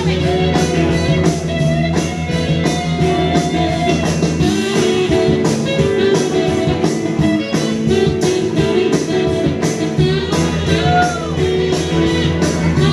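Live rock band playing, led by guitar with a steady drum beat; a vocal line comes in near the end.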